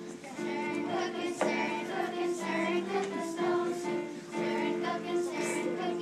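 A group of children singing a song together, holding each note for around half a second to a second.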